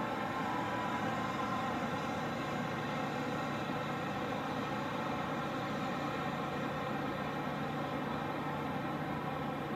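A large engine idling: a steady hum that holds unchanged throughout.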